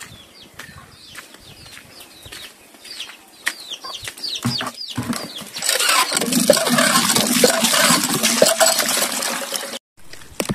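Water poured from a bucket into a concrete trough, a loud gushing splash lasting about four seconds from the middle on, cutting off suddenly. Before it, a bird's repeated short, high chirps, each falling in pitch.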